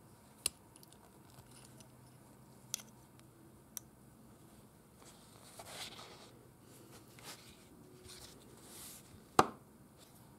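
Small parts of a Stihl TS 420 concrete saw's carburetor being handled on a cloth: a few light clicks and soft scrapes as a cover plate and its screws come off, with one sharper click near the end.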